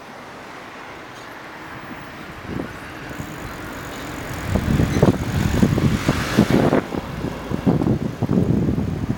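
Outdoor street noise: a vehicle passing, with wind buffeting the microphone in uneven gusts from about halfway through.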